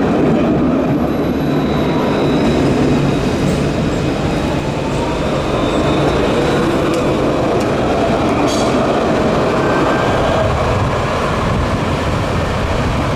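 Alstom Citadis low-floor tram running on street track: a steady rumble of wheels on rail and traction motors with a faint high tone, and a few short clicks about two-thirds of the way through.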